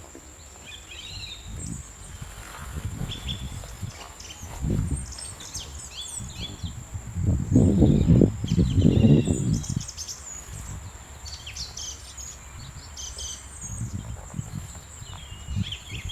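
Small birds chirping and trilling in short, scattered calls over a steady high-pitched whine. Bursts of low rumbling noise come and go, loudest for a few seconds around the middle.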